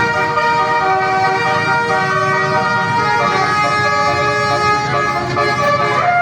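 A bus's multi-tone 'telolet basuri' air horn, a 24-note melodic horn, playing a tune. Several tones sound together and shift pitch about every second over a steady low rumble.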